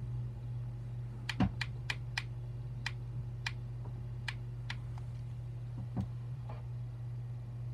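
Keys tapped in a quick irregular run of about ten sharp clicks over three or four seconds, over a steady low hum. A soft thump follows about six seconds in.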